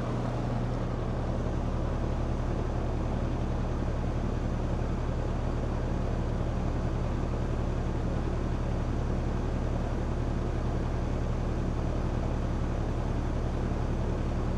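Air-conditioning condensing unit running: a steady compressor hum with fan noise, while the system, which is low on refrigerant, is being charged.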